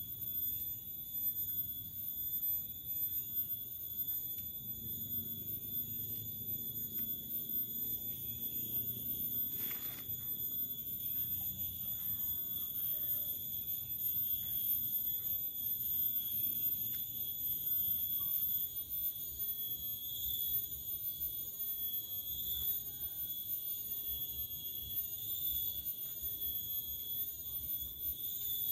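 Steady high-pitched shrill of insects in chorus, wavering slightly without a break, with occasional faint clicks and one sharper click about ten seconds in.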